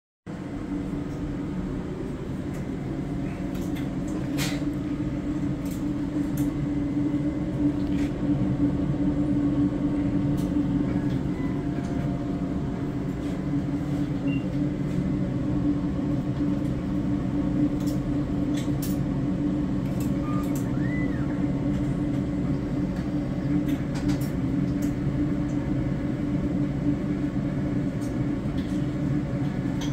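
Sakura Tissue-Tek Prisma Plus automated slide stainer running: a steady machine hum with a low drone, and scattered short clicks.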